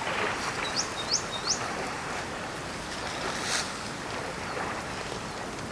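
Elephant herd wading through a shallow river: a steady wash of splashing water. About a second in come three quick rising bird whistles, and faint short high buzzes repeat throughout.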